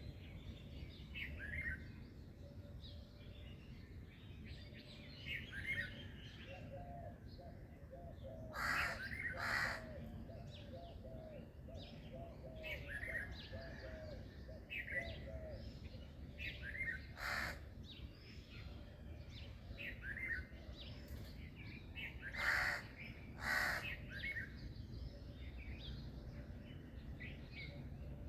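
Several small birds chirping and tweeting in short, scattered calls, with a run of quick lower notes early on, and two pairs of loud harsh calls, one about a third of the way through and one near the end. A steady low background rumble lies under it all.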